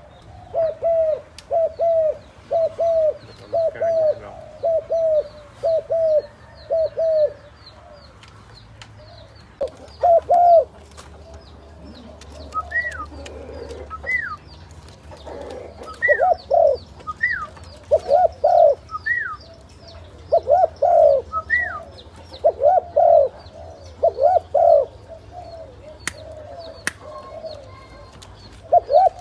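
Spotted doves cooing. First comes a quick, even run of coos, then after a pause louder coos at irregular intervals. Faint high chirping of small birds runs underneath, with a few short, higher whistled notes in the middle.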